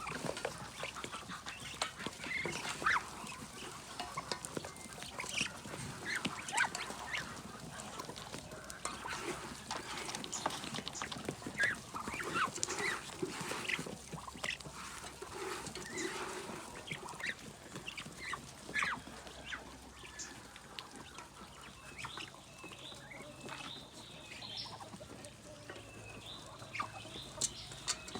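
A flock of kampung–Bangkok crossbred chickens clucking and calling, many short overlapping calls throughout.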